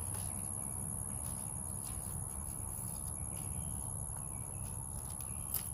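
Outdoor background: a steady low rumble and a faint constant high whine, with faint bird calls and a single sharp click near the end.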